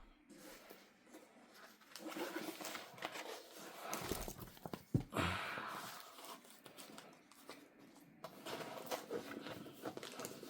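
Plastic packaging being handled: irregular rustling and crinkling, with a knock about five seconds in.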